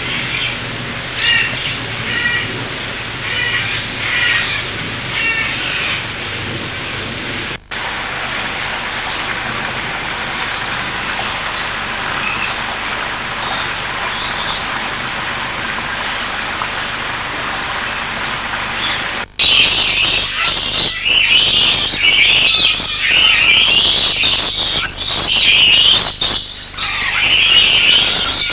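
Aviary birds calling over a steady background hiss: repeated high chirps at first, then fewer calls. From about two-thirds in comes a loud, dense chorus of high-pitched parrot squawks and screeches. The sound breaks off abruptly twice.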